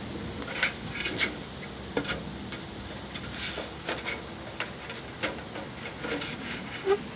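Thin aluminum siding sheet being slid into and positioned on a portable sheet-metal brake: scattered light clicks, taps and rattles of the sheet against the brake, with a sharper knock near the end.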